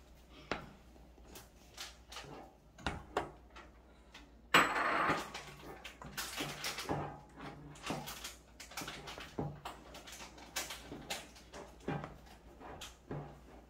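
Kitchen handling noise: dishes and containers being knocked and set down in scattered clicks and clunks, with one louder rustling rush about four and a half seconds in that lasts about a second.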